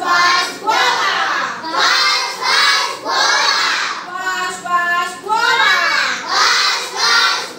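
A group of young children's voices chanting together in sing-song phrases, one short phrase after another.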